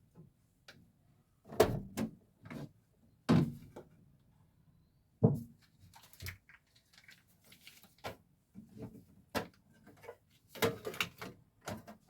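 Household objects being handled and set down: a string of separate knocks and clunks about a second apart, with a quick run of rattling knocks near the end.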